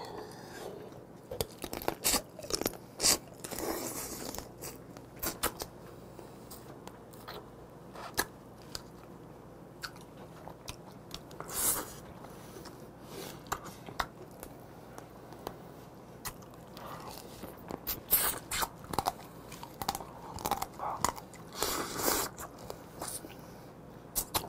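A person eating Korean blue crab (kkotge) close to the microphone: biting and chewing crab pieces, with irregular sharp crunches and clicks from the shell.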